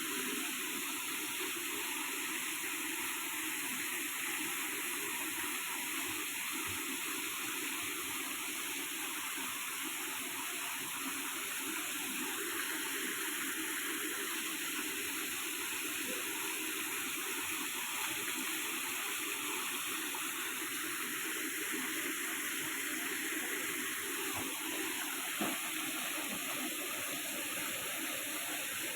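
Waterfall, water falling and rushing in a steady, unbroken wash.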